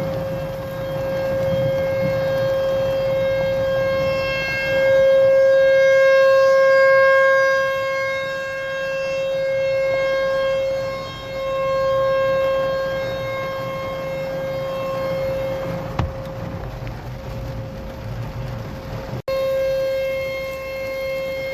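American Signal T-128 rotating outdoor warning siren sounding a steady, unchanging tone for a tornado warning, its loudness swelling and fading as the horn turns. It breaks off for an instant near the end.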